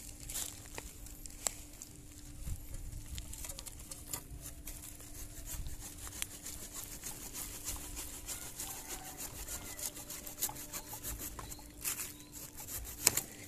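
Irregular taps, thuds and scrapes of a short metal blade chopping and digging into soil and the thick roots of an ileng-ileng plant, with a sharper knock near the end.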